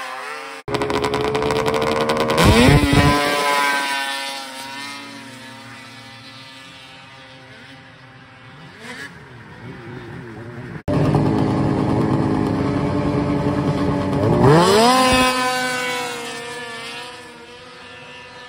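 Race snowmobiles in a hill drag: the engines rev up with a sharp rise in pitch, then run hard and fade as the sleds pull away up the slope. This happens twice, with a sudden cut to a second run about eleven seconds in.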